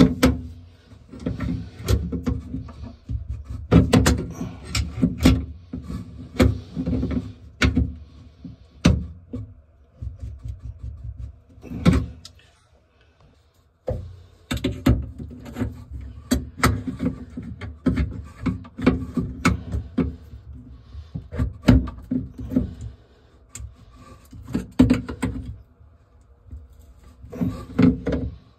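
Wrenches working the locknut and tailpiece of an old, corroded metal sink drain: irregular clanks, clicks and scrapes of tool against metal, with a short pause about twelve seconds in.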